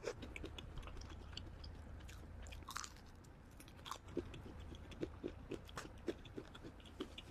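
Close-miked chewing of crispy fried chicken coated in spicy red sauce: a steady run of short, sharp crackling clicks as the fried coating is bitten and chewed.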